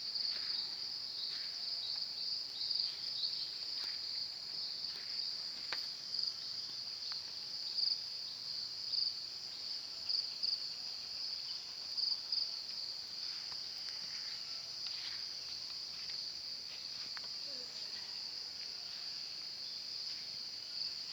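Steady high-pitched trill from a cricket-like insect that is not a cricket, with a slight pulsing in its level, and a few faint short bird chirps behind it.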